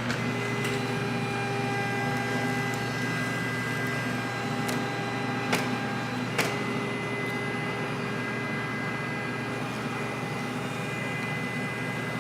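Saab power antenna motor whining steadily as it drives the newly fitted mast, with two sharp clicks near the middle before it runs again, as the mast goes up and back down.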